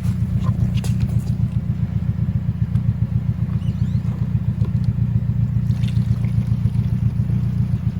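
An engine idling steadily with an even low throb.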